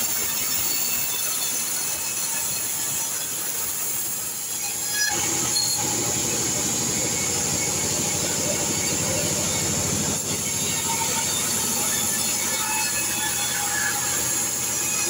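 T.36 band saw running and cutting lengthwise through a kecapi (santol) log: a steady high whine and hiss of the blade in the wood, growing heavier about five seconds in.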